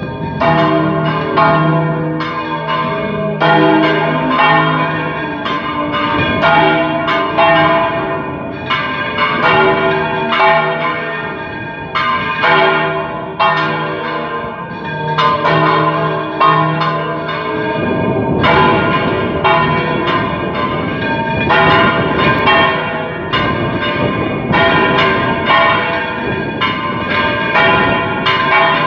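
Three church bells swung full circle together in the Valencian volteo style: the 81 kg Rabajolet, tuned to G and cast in 1662, the 244 kg 'pequeña' in C and the 927 kg 'grande' in F, both cast in 1954. They strike in quick, overlapping, irregular succession, and each strike rings on.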